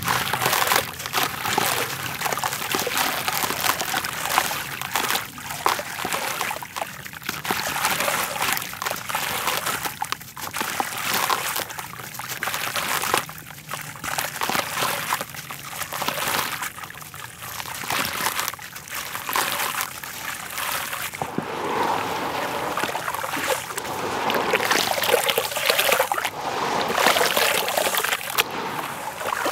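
A soaked, grainy red dirt block being crumbled by hand and dipped in a tub of muddy water: crunchy crumbling, with wet grains and drips trickling and splashing back into the water in irregular swells.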